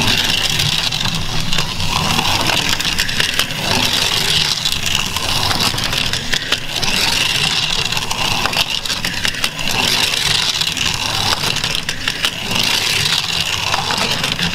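Slot cars racing on a plastic slot-car track: their small electric motors give a steady high whir, with rapid rattling clicks as the cars run over the track.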